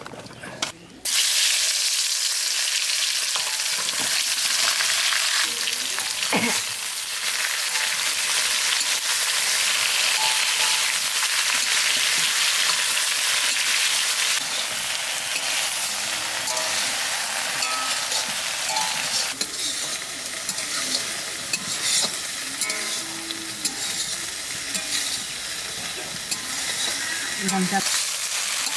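Brinjal (eggplant) slices sizzling in hot oil in a metal wok, stirred and turned with a metal spatula. The sizzle starts suddenly about a second in and keeps up steadily.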